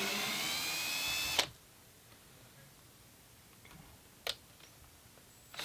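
Power drill running in reverse with a Speed Out screw extractor bit, backing out a stripped screw. The motor whine rises slightly in pitch and stops abruptly about a second and a half in. A sharp click comes near four seconds, and the drill gives a brief burst again right at the end.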